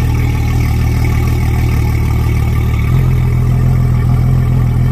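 Yamaha F250XB V6 four-stroke outboard running steadily out of the water on a flush hose, with exhaust water spattering from the propeller hub onto pavement. The engine note shifts slightly about three seconds in.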